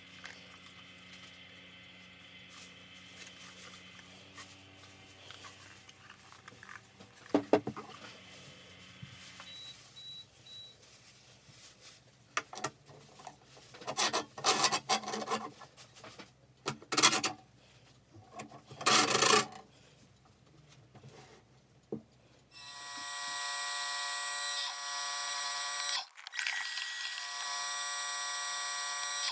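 Wooden frame parts rubbing, scraping and knocking as they are handled, with several loud scraping bursts past the middle. Near the end a benchtop drill press starts suddenly and runs steadily with a high whine while drilling.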